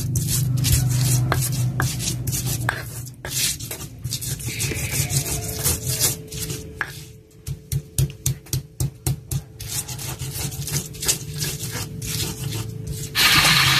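Stone pestle grinding chilies, garlic and salt against a stone mortar (ulekan and cobek) for sambal: repeated rubbing and crushing strokes, about three a second in the middle stretch. A steady hiss comes in suddenly near the end.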